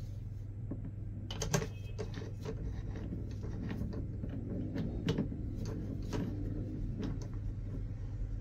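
Irregular metal clicks and knocks, about a dozen, as a rebar rod is set into the jaws of a 100 mm lathe chuck and tightened with the chuck key. The loudest click comes about a second and a half in, over a steady low hum.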